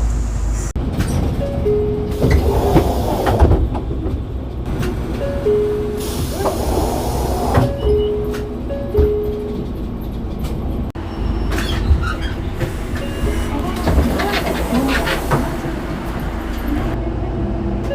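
Door chime of a 2012 Mitsubishi Fuso Aero Star city bus: a short two-note chime, high then low, sounds four times in the first half. It plays over the bus's running engine and cabin noise.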